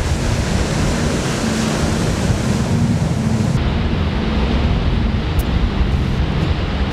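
Ocean surf: a steady wash of breaking waves, turning duller about halfway through when the high hiss drops away.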